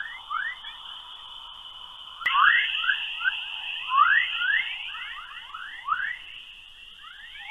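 Spacecraft-recorded radio emissions from a planetary environment, converted to sound: a steady high-pitched band with many quick rising chirps, a few a second. The band changes abruptly about two seconds in.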